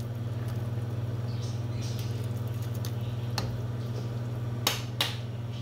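A steady low hum, like a small motor or fan, with light kitchen clatter: two sharp knocks close together near the end.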